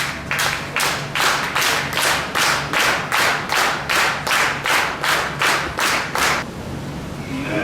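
Crowd clapping in unison to a steady beat, about two or three claps a second, stopping about six and a half seconds in.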